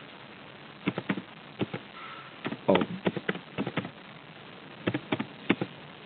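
Computer keyboard being typed on: irregular clicks of single keystrokes in short runs, pausing briefly about two thirds of the way through.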